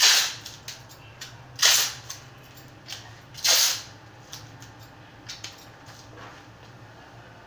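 Clear adhesive tape pulled off its roll in three short rasps, about a second and a half apart, with light clicks between them as the tape is cut with scissors. This is tape going over the plastic wrap on the head to make a template of the bald area for a hair patch.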